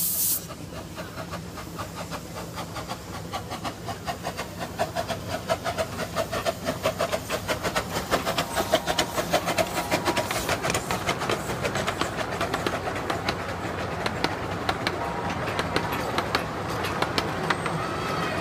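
Miniature steam train pulling away and rolling past: a hiss of steam cuts off about half a second in, then a steady beat of exhaust chuffs and wheels clicking on the rails, quickening as the train gathers speed.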